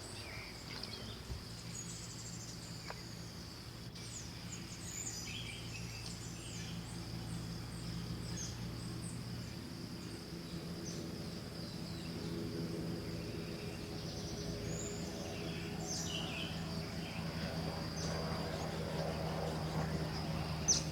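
Outdoor ambience: insects keep up a steady high drone, birds give scattered short chirps, and a low steady hum runs underneath and grows a little louder in the second half.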